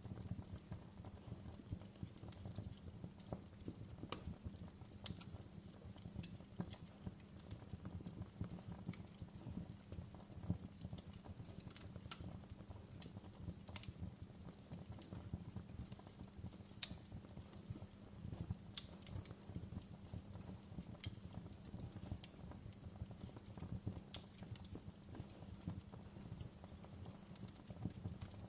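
Outdoor wood fire crackling: irregular sharp pops and snaps over a low steady rumble.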